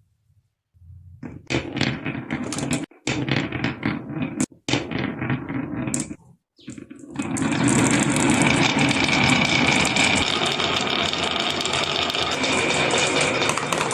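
Many marbles rolling and clattering down a marble run. In the first half the rattling comes in bursts with short pauses between them; from about seven seconds in it turns into a dense, continuous clatter.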